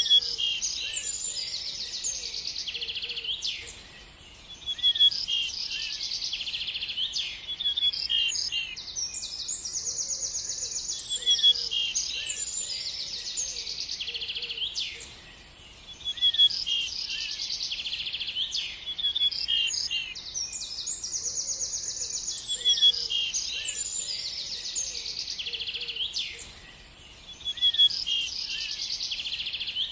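Songbirds chirping and trilling in a dense, high-pitched chorus, with short lulls. The same passage repeats about every eleven seconds, a looped recording.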